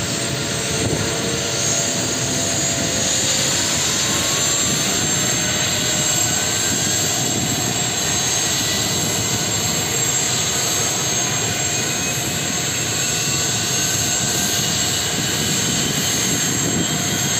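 Boeing Vertol 234 Chinook running on the ground with both rotors turning: a steady high turbine whine over a dense rushing engine and rotor noise.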